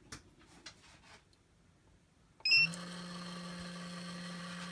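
RCBS ChargeMaster and Hornady electronic powder dispensers started together: a few faint keypad clicks, a short electronic beep about two and a half seconds in, then the steady hum of the dispenser motors as they begin throwing a powder charge.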